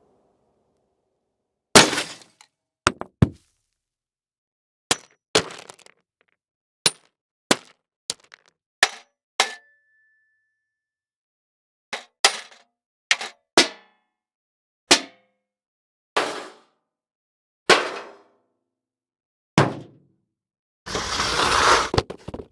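A run of separate impact sound effects, about twenty short hits, knocks and thuds one after another with silence between them. One, about nine and a half seconds in, leaves a brief ringing tone, and near the end comes a longer crashing, breaking noise.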